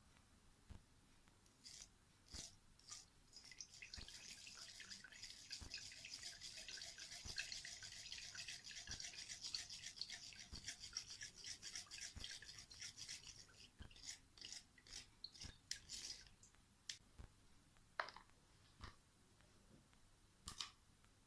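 Faint, fast scratchy rubbing, like brushing or grating. It starts about four seconds in and stops about sixteen seconds in, with scattered light clicks and taps around it.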